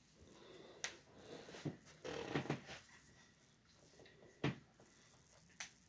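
Faint rustling of hair and clothing, with a few soft sharp ticks, as hands gather the hair up and tie it back.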